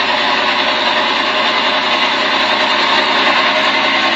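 A boat's engine running steadily and loudly at close range, with no change in pitch or level.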